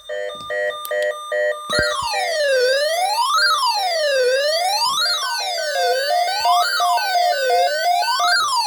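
Electronic emergency alert tone announcing a tornado watch. It opens with a quick run of short beeps, then about two seconds in becomes a siren-like wail sweeping up and down about every one and a half seconds over a steady pulsing tone.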